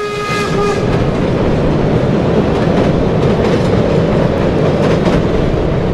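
Passenger coaches of a steam train rolling over a steel truss bridge: a steady rumble and clatter of wheels on rails. The tail of the steam locomotive's whistle dies away in the first half second.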